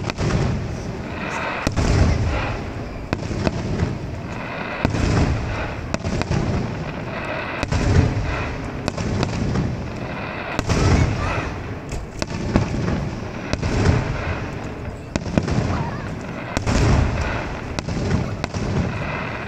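Fireworks display: aerial shells bursting in a dense run of deep booms every second or two, with sharp crackling between the bursts.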